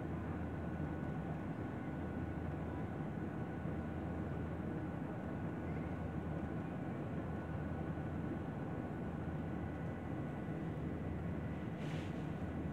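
Steady engine drone and rushing air inside an airliner's cabin during take-off and climb, with a thin steady whine above the drone. A short hiss sounds near the end.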